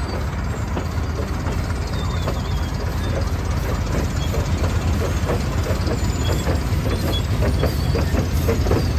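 Holt No. 111 steam traction crawler standing with steam up: a steady low rumble and hiss, joined about four seconds in by a quick, regular chuffing beat.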